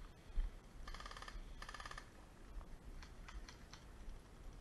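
Airsoft electric gun firing two short full-auto bursts of rapid clicks, about a second apart, followed by a few single sharp clicks.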